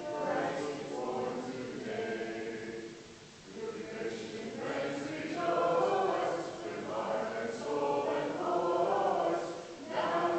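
A church congregation singing a Christmas carol together, in phrases with a short break between lines.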